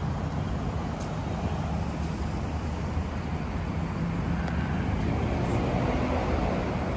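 Steady city road-traffic noise, a low continuous rumble of passing cars that swells slightly past the middle.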